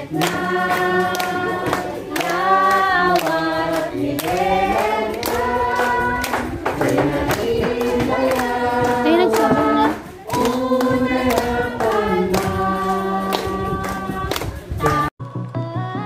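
A group of people singing together in unison, with hand claps mixed in. About a second before the end the singing cuts off abruptly and electronic dance music begins.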